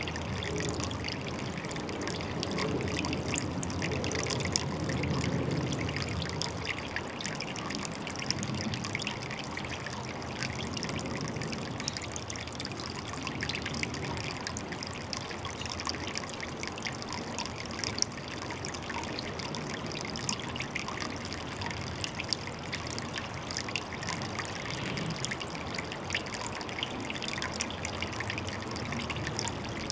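Water trickling and splashing steadily, a continuous patter of small droplets, a little fuller and deeper for the first several seconds.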